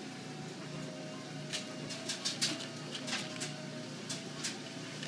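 A cat crunching dry kibble: irregular crisp crunches, coming thick from about a second and a half in.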